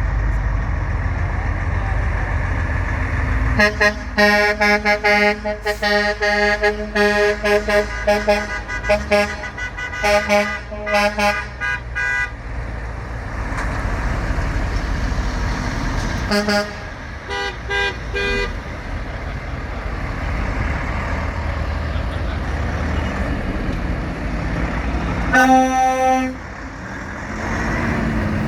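Truck horns honking over the rumble of passing engines. There is a long run of quick short toots, a few more a little later, then one longer blast and more toots near the end.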